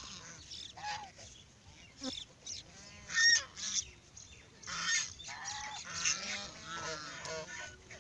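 A flock of domestic geese honking, many short calls from several birds overlapping. The loudest honk comes about three seconds in, and a dense run of overlapping calls follows from about five seconds on.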